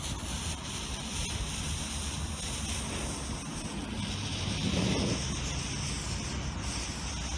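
Category 1 'Blue Flame' firework fountain burning with a steady hissing rush as it sprays sparks. It swells louder for a moment about five seconds in as it flares up into its blue flame.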